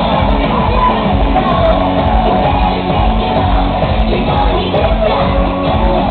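Loud music with a steady beat and a singing voice.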